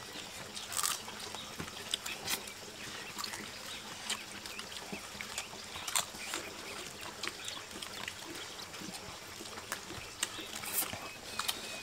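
People chewing and lip-smacking as they eat grilled chicken by hand, with irregular wet clicks.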